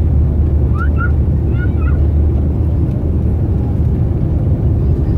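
Cabin noise of a Bombardier CRJ-900ER rolling along the runway after landing: a steady low rumble. A few brief high chirps come about one to two seconds in.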